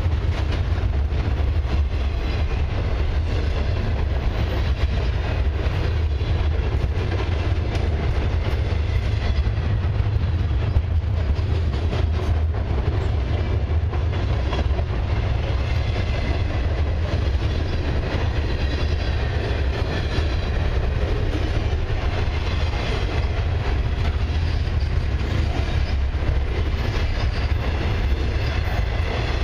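Canadian Pacific Expressway train of semi-trailers on low flatcars rolling steadily past at speed: a continuous noise of wheels on rail, heaviest in the deep low end, holding an even level throughout.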